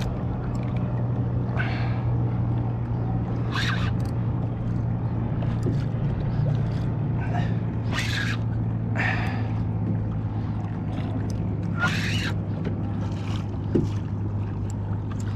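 A steady low motor hum, with a few short swishes of water splashing against the kayak's hull.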